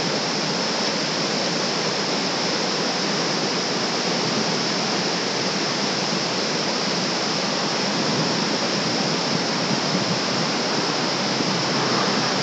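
River rapids rushing over and around large boulders: a steady, loud rush of white water.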